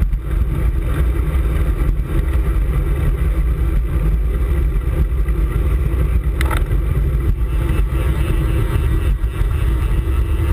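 Steady low wind rumble buffeting the microphone of a camera riding on a moving road bicycle, with road noise under it and a short click about six and a half seconds in.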